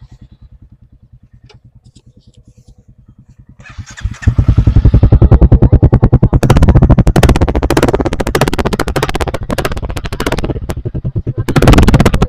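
Royal Enfield 350's single-cylinder engine idling with an even beat, then from about four seconds in heard right at the exhaust, where the exhaust pulses become much louder and uneven.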